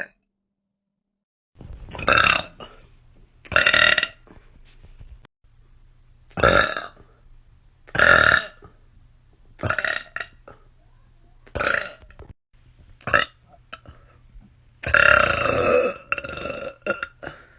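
A person burping over and over: about eight loud burps, starting a couple of seconds in and coming every second or two, with the longest one near the end.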